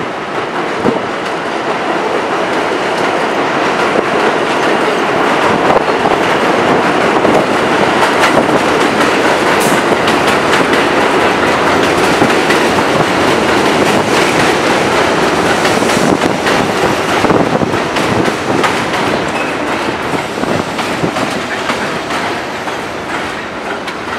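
R32 subway train running into an elevated station and passing close by: a loud rumble of steel wheels with rapid clacking over the rail joints. It builds over the first few seconds, holds, and eases slightly near the end.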